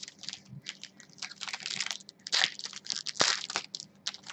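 Foil trading-card pack wrapper crinkling as it is handled and torn open by hand, in irregular crackles that are loudest a little past two seconds and again just past three.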